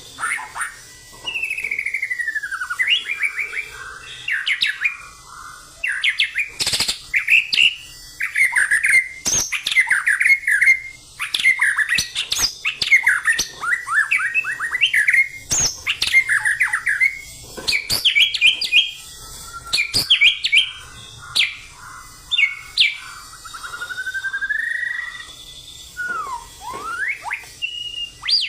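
White-rumped shama singing a long, varied song of rich whistled phrases, with rising and falling notes, rapid trills and occasional sharp clicks, broken by short pauses.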